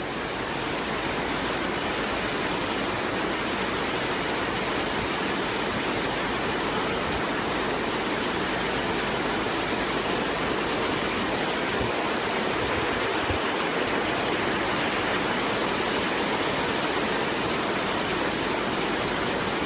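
Steady rushing noise of rain and water on a flooded road, heard from inside a car.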